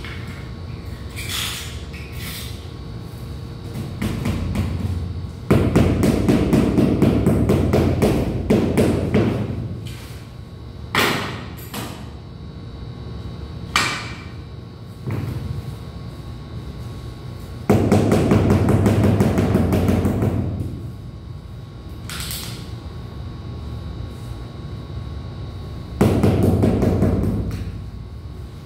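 Rubber mallet tapping rapidly on a large ceramic floor tile to bed it into the mortar, in three long runs of quick taps with a few single knocks in between.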